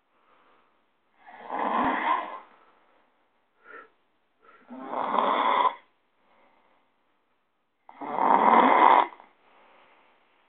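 A man snoring heavily: three loud snores, each about a second long, coming roughly every three seconds, with a short fainter sound between the first two.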